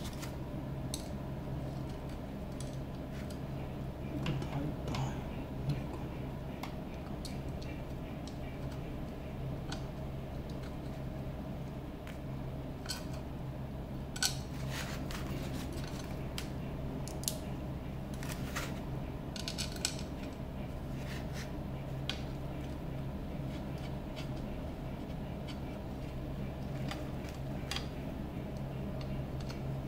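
Small metal screws and spacers clicking and clinking as they are handled and fitted into metal chassis corner pieces during kit assembly, with a short rapid run of ticks about twenty seconds in, over a steady low hum.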